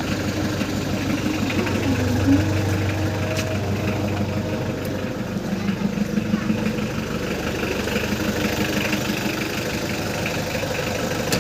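Hyundai Grace H100 van's diesel engine idling steadily with a low hum, running smoothly now that the old fuel filter that caused hard morning starts has been replaced.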